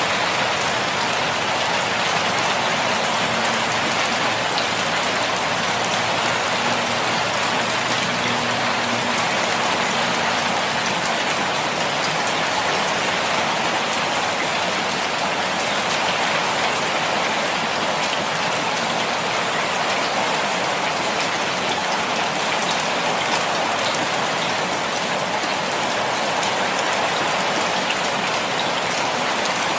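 Rain falling steadily: an even hiss with scattered small drop taps.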